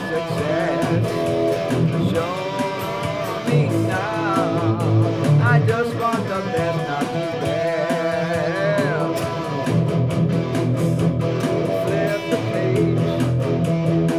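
PRS SE Standard electric guitar playing bent, wavering lead notes over a steady BeatBuddy drum-machine beat.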